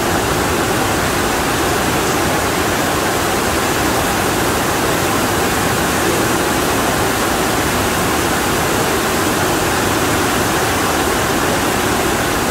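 Torrential rain pouring down, a dense, steady rush with no let-up and no distinct drops or thunder.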